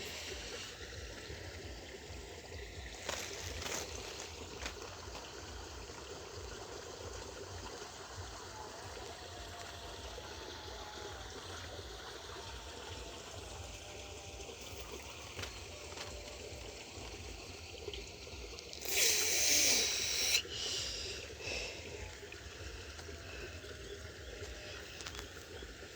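Water trickling steadily in a small ditch, with a low rumble underneath. About nineteen seconds in comes a loud, brief noise lasting about a second and a half.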